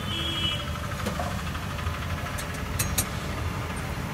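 Steady low, engine-like rumble, with a few short sharp clicks about two and a half to three seconds in.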